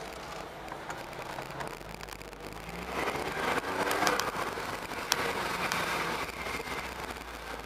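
Car engine noise heard from inside a moving car's cabin, with the engine note rising in pitch as the car speeds up about three seconds in. A few light clicks and rattles sound over it.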